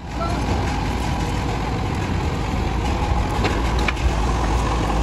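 An engine idling steadily with a low rumble, with a couple of light clicks about three and a half seconds in.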